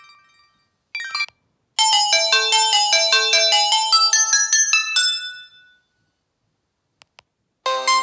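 Samsung GT-E1080W phone playing its preset ringtones: a bright synthesized melody of quick short notes from about two seconds in, ending on a held note that fades out. Two faint clicks follow, and the next ringtone starts near the end.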